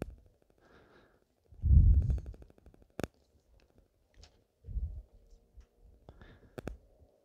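Low rumbling buffeting on the phone's microphone, coming in a few uneven gusts, the strongest about two seconds in. There is a sharp click about three seconds in and a quick double click near the end.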